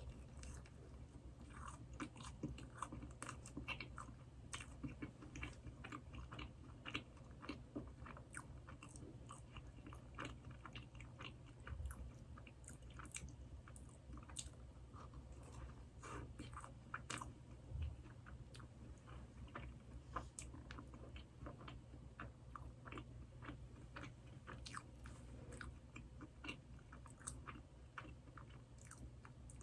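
Close-miked chewing of Krispy Kreme doughnuts: a steady run of many small mouth clicks and bites, over a low steady hum.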